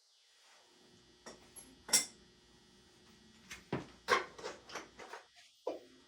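Metal tools and motorcycle parts clinking and clanking as they are handled: a sharp clank about two seconds in, then a quick run of clinks from about three and a half seconds on.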